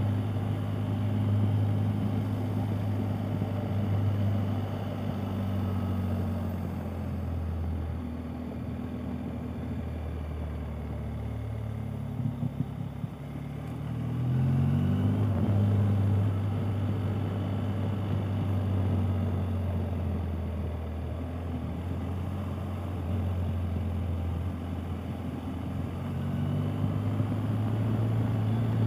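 BMW R 1250 GS Adventure's boxer-twin engine running while the bike is ridden. Its note eases off and gets quieter about midway, then rises again as the bike accelerates.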